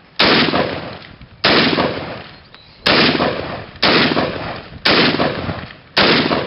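AK-pattern rifle firing six single shots about a second apart, each crack followed by a long echo that fades away before the next shot.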